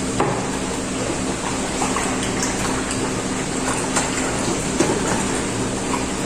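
A spoon beating powdered lentils into water in a bowl: wet sloshing with scattered light clicks of the spoon against the bowl, over a steady low hum.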